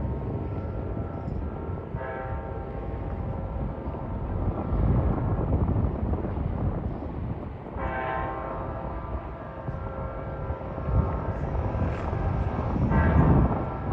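Amtrak locomotive air horn sounding several separate blasts as the train approaches, the loudest about eight seconds in. A steady low rumble runs under it.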